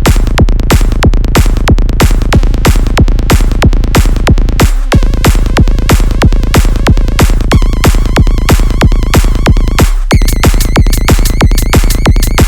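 Electronic dance music track with a steady, fast, driving beat over heavy bass. The bass drops out for a moment twice, and a synth melody comes in over the beat in the second half, moving higher near the end.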